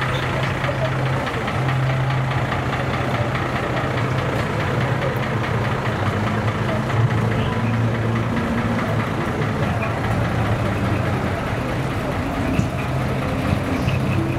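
Large truck's diesel engine idling, a steady low hum that runs without a break.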